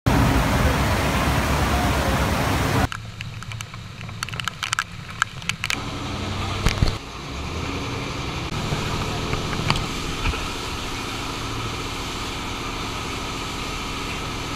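A loud, even rush of heavy rain and wind for about three seconds, then a sudden cut to a scatter of knocks and clatters. From about seven seconds a canal boat's engine runs steadily as the boat moves through the rain.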